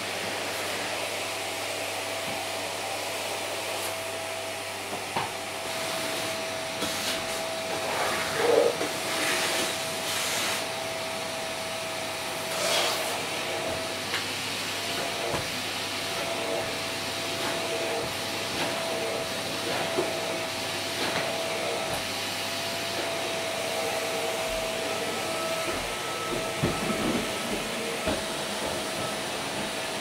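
Vacuum cleaner running steadily on carpet: a constant rushing hiss under a steady motor whine, with a few short swishes and clicks as the nozzle is worked over the carpet, strongest about a third of the way in.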